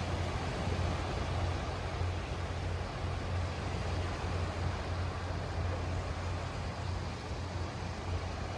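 Sea noise: a steady rushing wash with a constant low rumble underneath.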